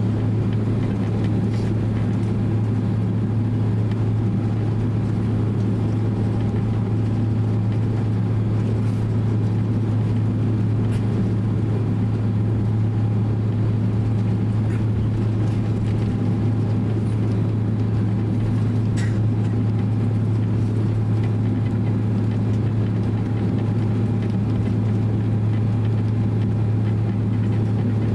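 Cabin noise of a Boeing 767-300 taxiing: a steady low drone from the engines at taxi power and the cabin air, with a few faint ticks.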